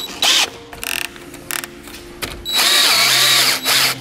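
DeWalt cordless drill driving threaded fixing bolts into a plywood wall board. It runs in short bursts, then in one longer run of about a second near the end, the motor pitch rising and falling as the bolt winds in.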